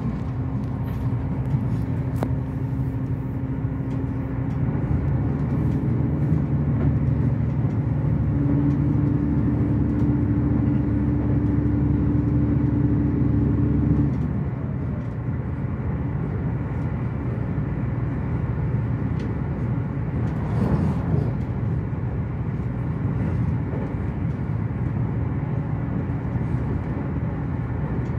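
Cabin noise of the Resort Asunaro HB-E300 series hybrid railcar running at speed: a steady rumble of wheels on track, with a low hum from the drive that drops away about halfway through. A brief rising-and-falling whoosh comes about two-thirds of the way in.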